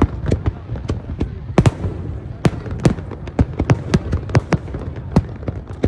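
Aerial fireworks bursting in quick irregular succession, sharp bangs a couple of times a second over a continuous low rumble of the display.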